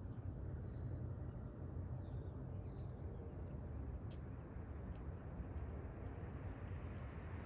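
Backyard ambience: a steady low rumble with a few faint, short bird chirps scattered through, and a single light click about four seconds in.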